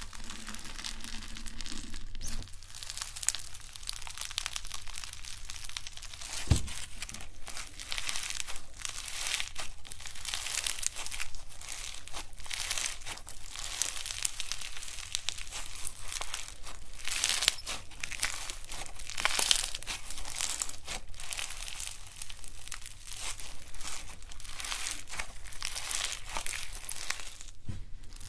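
Floam slime, foam beads packed in sticky slime, crunching and crackling as hands knead, stretch and squeeze it, in a dense, continuous stream of fine crackles. A single thump partway through.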